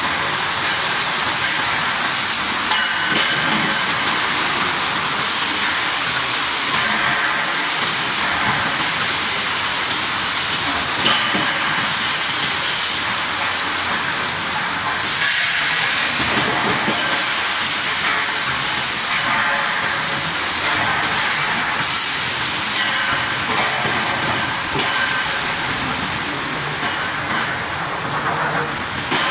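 Steel pipe chamfering machine running, a steady harsh hissing machining noise with a few sharp knocks.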